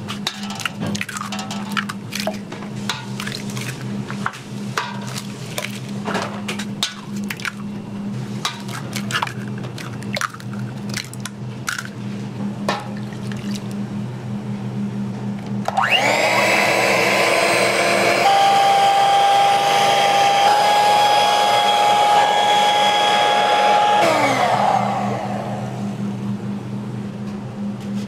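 A run of sharp clicks and taps as eggs are cracked into a steel pot, over a steady low hum. About sixteen seconds in, an electric blender starts up and runs steadily for about eight seconds, beating the raw eggs, then winds down.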